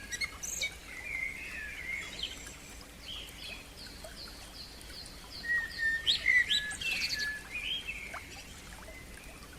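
Songbirds singing, with several overlapping whistled phrases and chirps. A run of about eight quick, evenly spaced falling notes comes a few seconds in, followed by a louder burst of chirps past the middle.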